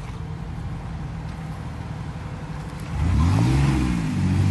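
Jeep Wrangler's engine running low and steady, then revved twice from about three seconds in, the pitch rising and falling each time, under load as it crawls up a rocky step.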